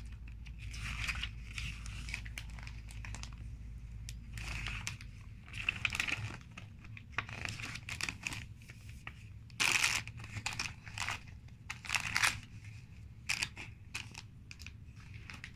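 Clear plastic LEGO parts bags crinkling and rustling as they are handled, in irregular bursts, the loudest about ten and twelve seconds in.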